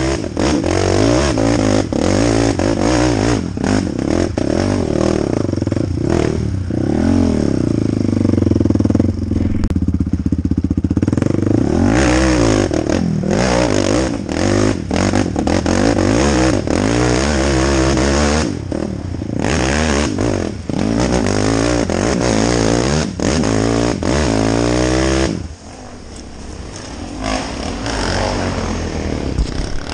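Dirt bike engine revving up and down as it is ridden over a rough trail, with clattering knocks from the bike and rider bouncing over the ground. About 25 seconds in the revs drop and the engine runs quieter, then builds again.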